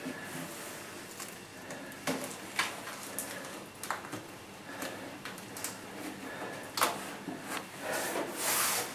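Masking tape being handled and pressed into place: scattered soft rustles and taps, with a longer rasping sound near the end.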